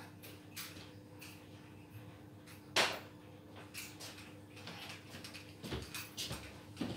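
A steady faint electrical hum with scattered small clicks and taps, broken by one sharp knock about three seconds in and a few softer knocks near the end.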